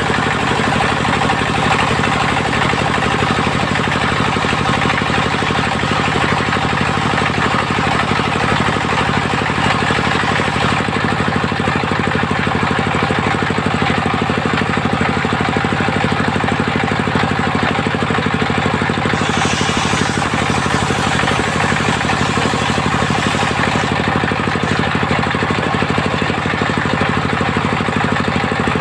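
Engine of a mobile circular sawmill running steadily, with a fast even rhythm and no breaks.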